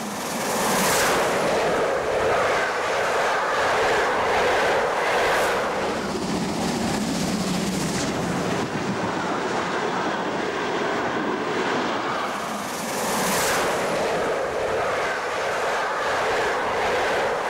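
Steam-hauled express train running past on the track: a steady, loud rolling noise that eases briefly about twelve seconds in and then swells again.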